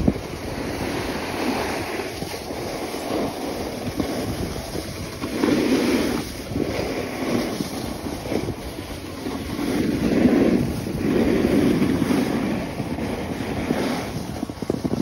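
Wind rushing over a phone microphone during a fast downhill run on snow, with the hiss and scrape of sliding over packed snow. It swells and eases in waves, loudest about halfway through and again a little later.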